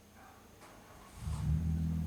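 A low, steady motor hum starts suddenly a little past halfway and keeps going.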